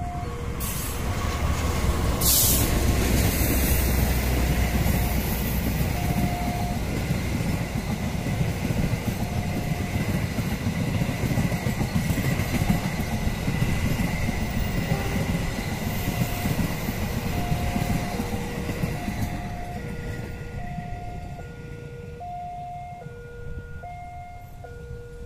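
A diesel locomotive hauling passenger coaches passes close by: its deep engine rumble swells in the first few seconds, then the wheels run on the rails with a thin steady high whine, and the noise fades away over the last few seconds. Through it all, a two-tone electronic warning signal alternates a lower and a higher beep.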